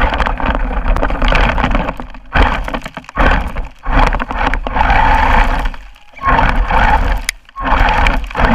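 A 1:10-scale RC monster truck driving over rough ground in bursts: loud crunching and rattling that cuts out briefly about five times.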